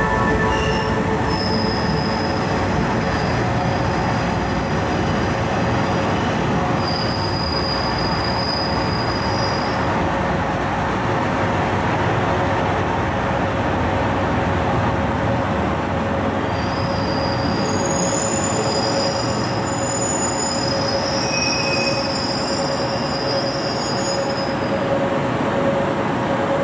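A train moving along the station platform: a steady rolling rumble and hum, with the wheels squealing at intervals. The high screeches come briefly near the start and again around a third of the way in, then run longer through the second half.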